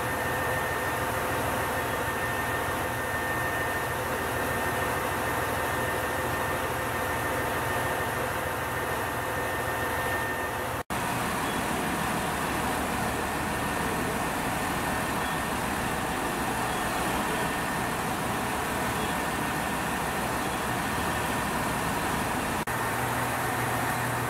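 KiHa 187 series diesel express railcar idling at a standstill: a steady engine drone. The sound drops out for an instant about eleven seconds in.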